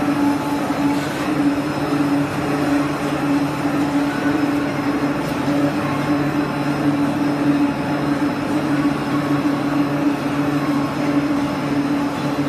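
Mini slitting line for pre-painted galvanized steel (PPGI) coil running, with a steady, even machine hum from its drives.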